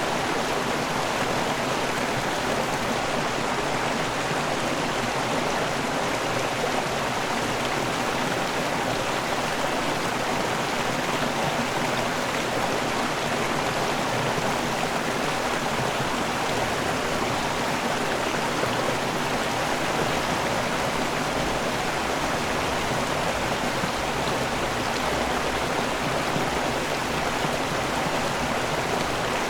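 River waterfall: water pouring and rushing over rocks in a steady, unbroken stream with no lulls or separate splashes.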